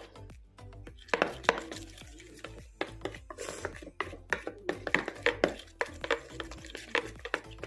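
Hands squishing and poking slime, giving an irregular run of sharp sticky clicks and pops, several a second.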